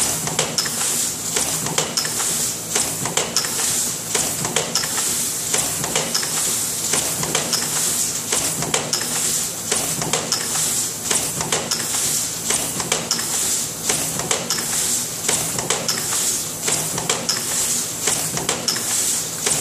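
Aluminium foil container-making press running, its die stamping and cutting trays out of the foil sheet with a rhythmic metallic clatter about once a second over a steady hiss and hum from the machine.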